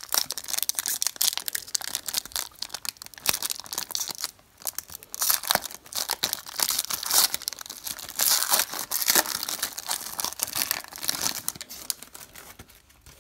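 A 2013 Elite football card pack's foil wrapper being torn open and crinkled by hand: dense, irregular crackling, with a brief lull about four seconds in.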